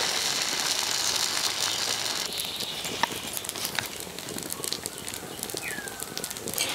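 Odu dosa batter sizzling in a hot clay pan over a wood fire, a steady hiss with the fire crackling, the hiss dropping after about two seconds. A short falling chirp sounds near the end.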